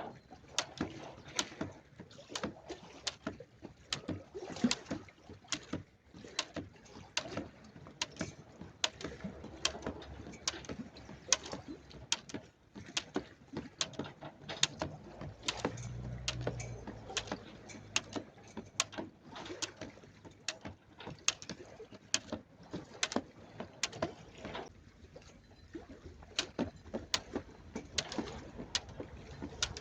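Jump rope slapping the ground with landing footfalls, sharp slaps coming two or three times a second, over a faint steady sound of water.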